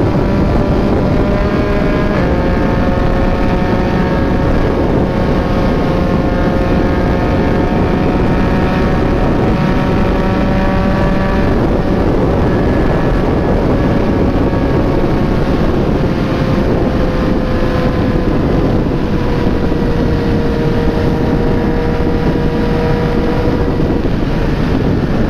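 Yamaha MT-09's inline three-cylinder engine through an imitation Akrapovic exhaust, cruising steadily, its pitch sagging slightly in the last third. Wind rushes over the microphone.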